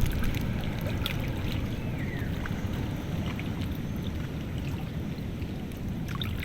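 Steady low rumble of wind buffeting the microphone outdoors, with a few faint scattered ticks.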